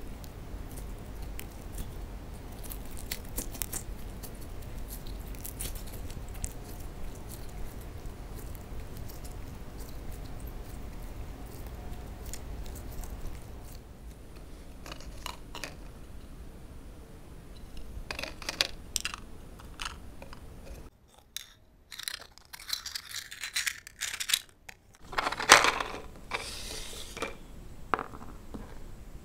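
Hands squeezing and folding a soft slime, giving fine sticky crackles and pops over a low hum. From about halfway on there are scattered clicks and short louder rustles as small toy food pieces are handled.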